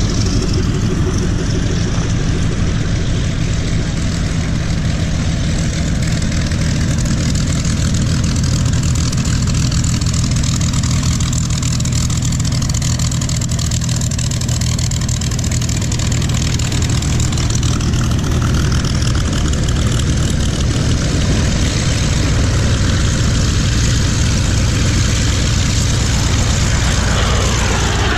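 Propeller engines of World War II fighters (a P-47 Thunderbolt, a P-40 Kittyhawk and an F4U-7 Corsair) running at low power as they taxi past one after another, a steady loud rumble. Near the end the pitch sweeps downward as one passes close.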